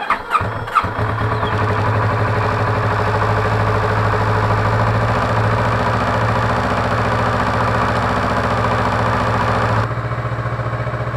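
Kawasaki ER-6F's 649 cc parallel-twin engine started on the electric starter, catching within about a second and then idling steadily. About ten seconds in it becomes a little softer and duller.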